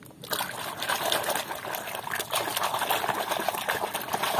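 A hand sloshing and splashing through a basin of thick muddy water while washing a small toy truck: a quick, continuous run of splashes and churning that starts just after the beginning.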